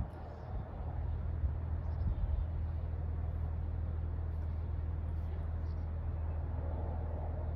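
52" Harbor Breeze Springfield ceiling fan running, with a steady low hum and air noise that grows slightly about a second in and then holds level.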